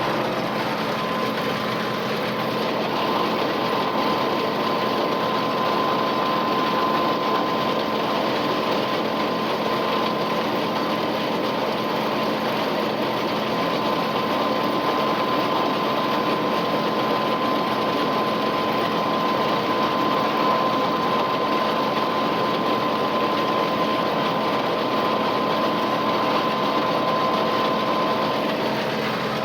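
Tractor engine running steadily under load, driving a Krone KR 130 round baler, a constant mechanical drone with a steady high whine that drops away just before the end.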